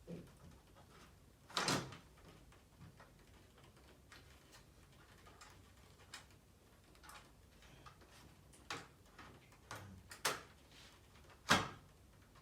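TV stand being slid into the bottom bezel of an LG OLED 65E8 television: scattered clicks and knocks, with louder knocks about two seconds in, about ten seconds in and near the end. A click marks the stand locking into place.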